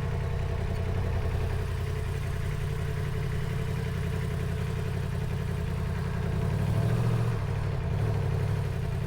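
Yamaha MT-10's crossplane inline-four engine idling steadily, rising briefly about seven seconds in.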